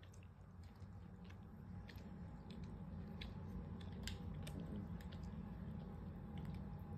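A kitten licking and nibbling at fur right beside the microphone: a run of small, irregular wet clicks and smacks over a low steady rumble.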